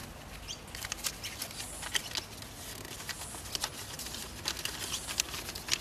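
Irregular rustling and small crackling clicks from something being handled in the hands, over a low steady rumble.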